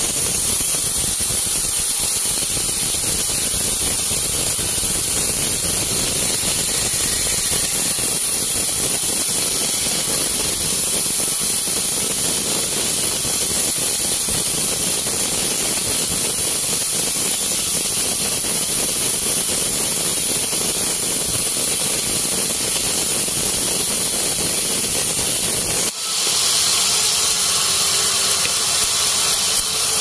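Band sawmill blade sawing lengthwise through a teak block to rip thin boards: a steady, loud, high hiss of the blade cutting wood over the running machine. There is a brief break about four seconds before the end, after which the hiss is stronger.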